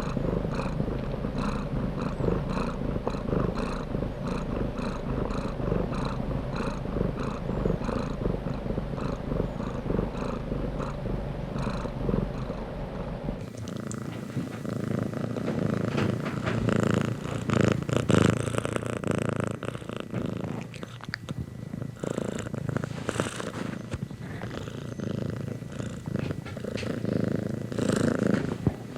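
A domestic cat purring close up, pulsing in a steady rhythm. About halfway through, the sound changes abruptly to a purr without the low hum underneath.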